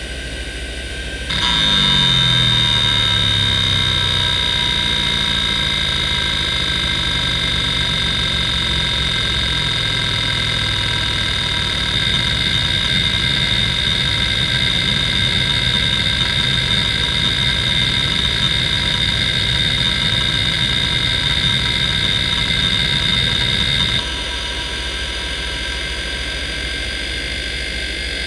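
Seagate ST3491A 427MB hard drive running under a seek benchmark: the spindle whines steadily while the heads seek rapidly in a low chatter. The chatter falls in pitch as the seeks lengthen, turns rougher and more even for random seeks, then stops abruptly near the end, leaving the quieter steady whine of the drive with lighter track-to-track seeking.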